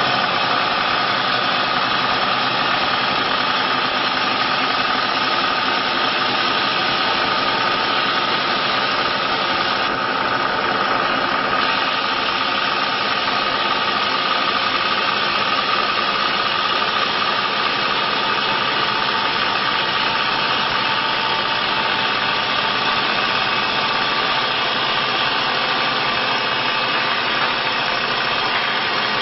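CNC wood-turning lathe running steadily, its spindle spinning a turned wooden baluster, with a steady whine over even machine noise.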